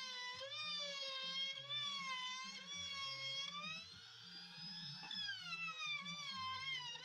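Background music: a sustained, wavering lead melody that slides in pitch, over a bass line stepping between notes.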